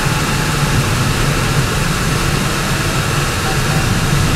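Car driving slowly on a dirt road, heard from inside the cabin: a steady low engine drone with tyre and road rumble.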